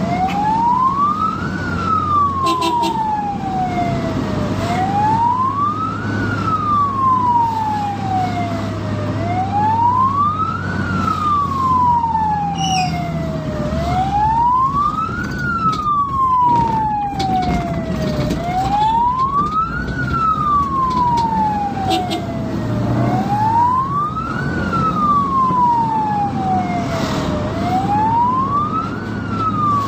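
Ambulance siren sounding a slow wail, each cycle rising for about a second and a half and falling for about three, repeating about every four and a half seconds over a steady low engine drone.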